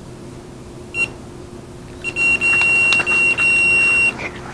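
Electronic carp bite alarm on a rod: one short beep about a second in, then a near-continuous high beeping tone for about two seconds. The sustained tone is the sign of a run, a fish taking line off the rod.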